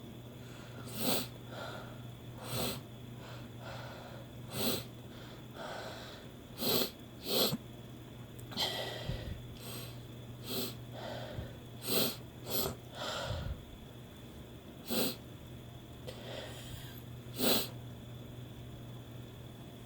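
A woman's short, forceful nasal bursts, about a dozen at irregular intervals, sniffing, snorting and sneezing after taking chhinkni sneezing powder.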